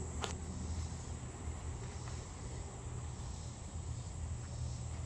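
Steady outdoor insect chorus over a low rumble, with a brief rustle of cotton trousers being handled about a quarter second in.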